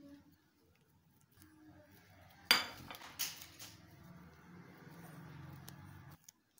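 A ceramic plate set down on a marble countertop: one sharp clink about two and a half seconds in, followed by a softer knock.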